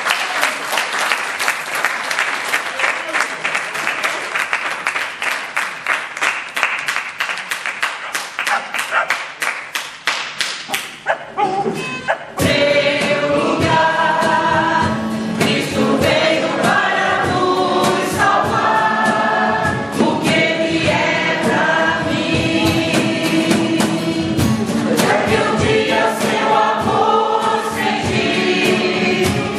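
A roomful of people clapping for about twelve seconds, then a choir starts singing together.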